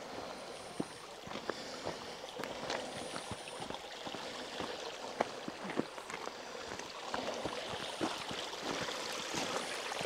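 Water running in a small stream, a steady rushing that grows a little fuller in the second half, with irregular crunching footsteps on the track.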